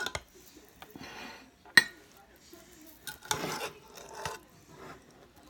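Metal serving spoon scraping and knocking against a saucepan as rice is scooped out onto a plate. There is one sharp clink just before two seconds in, and a longer scrape a little past three seconds.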